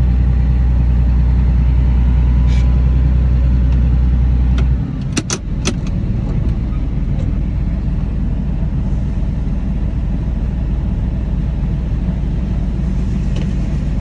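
Tractor engine running steadily. About five seconds in, a few sharp clicks sound and the low drone drops to a lower, steady level.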